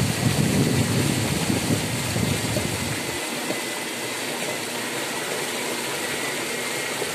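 Van travelling along a flooded road: a steady rushing travel noise, with a heavier low rumble for about the first three seconds that then eases off.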